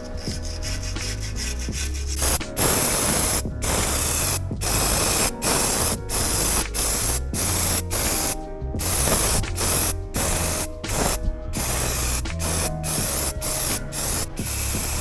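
Flat black underbody coating being sprayed onto a Land Rover chassis in repeated bursts of hissing, each lasting about half a second to a second, with short breaks between them. Before the spraying starts, about two seconds in, there is a rubbing sound.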